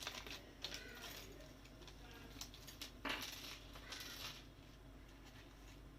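Faint handling of a kit's plastic packaging: light rustling with small scattered clicks and rattles, a few stronger rustles about three and four seconds in.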